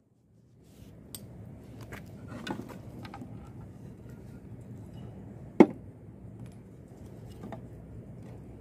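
Light taps and clicks of a grooved wooden strip being picked up and turned over by hand, with one sharp click about five and a half seconds in, over a faint steady outdoor background.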